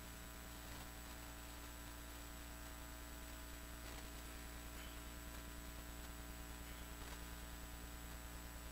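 Steady, low electrical mains hum with a few faint clicks.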